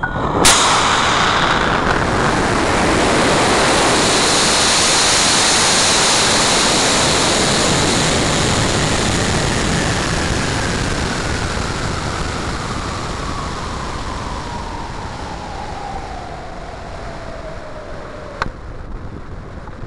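Onboard sound of a Level 3 high-power rocket flying on an M1315 motor. The motor lights with a sharp crack and a loud rushing roar, which slowly fades as the rocket climbs and slows, with a whistle from the airflow that falls steadily in pitch. A single sharp pop near the end comes from the ejection charge at apogee.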